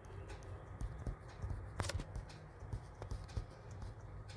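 Low steady room hum with scattered faint clicks and taps, the sharpest a little under two seconds in.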